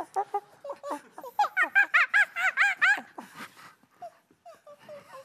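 Performers imitating monkeys with high-pitched vocal calls: a quick run of about nine rising-and-falling whoops between one and three seconds in, with shorter scattered grunts and squeaks around it.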